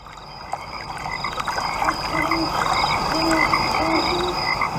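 Nature sound bed of many animal calls: short, repeated pitched calls over a steady high trill, growing louder over the first two seconds.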